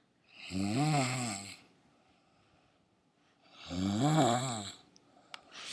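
A person snoring: two snores about three seconds apart, each about a second long, with a pitch that rises and then falls. A few faint clicks near the end.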